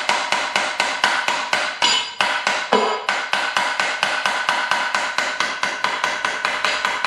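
Rapid, steady tapping with a plastic/rubber-headed hammer on a snowblower drive shaft, about four strikes a second, with a ringing tone from the metal and a short break about two and a half seconds in. The shaft is stuck, and the tapping is to drive it out of its coupling.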